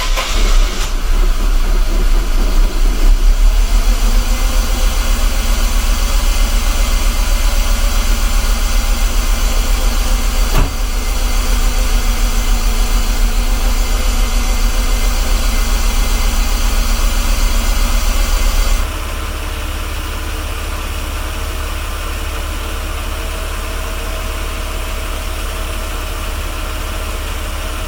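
1991 Mercedes-Benz 300SL's straight-six engine idling steadily just after starting, running on freshly replaced CIS fuel injectors. A sharp click comes about ten seconds in, and about nineteen seconds in the sound suddenly drops in level and turns duller.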